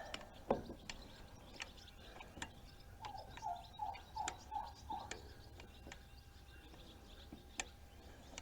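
Faint, scattered light metallic clicks and taps as a starter mounting bolt is worked in by hand on a John Deere X540 garden tractor. A quick run of five short chirps comes about three seconds in.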